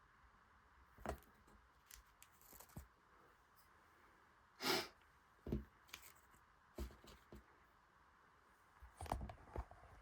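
Quiet handling noises: scattered light clicks, knocks and rustles, with one louder short rustle near the middle, over a faint steady room hum.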